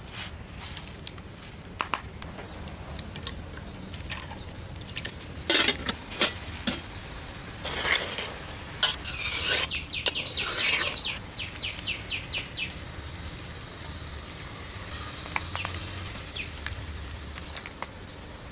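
Stirring and mixing: a metal ladle scrapes and clinks in a pot of coconut milk and against a bowl of marinating beef, in scattered knocks and scrapes, busiest a third to two thirds of the way in. About two thirds of the way in there is a quick run of rapid ticks. A low steady hum runs underneath.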